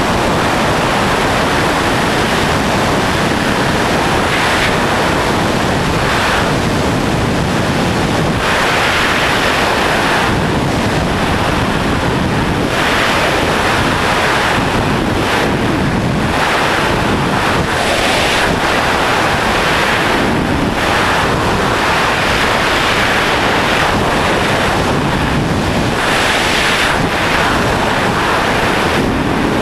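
Loud, steady rush of freefall airflow buffeting the camera's microphone, swelling and easing every few seconds.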